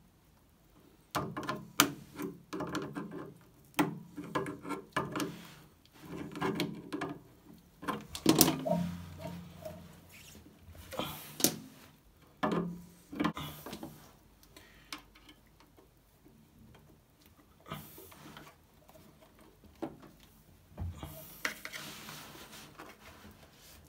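Washing machine drum making irregular clicks, knocks and scraping, the noise of a stray wire caught between the drum and the outer tub, still present after a wire was removed from the heating element.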